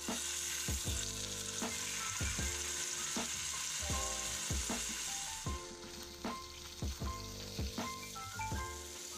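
Yellowtail fillets sizzling in hot oil in a frying pan. The sizzle starts at once as the fish goes into the pan and eases off after about five seconds. A beat-driven music track plays underneath.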